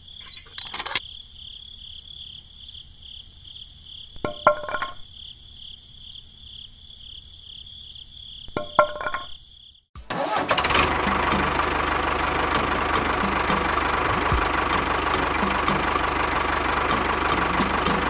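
A miniature tractor's motor starts suddenly about ten seconds in and runs steadily with an even ticking. Before it starts there is a faint, steady high warbling tone with a few short clicks.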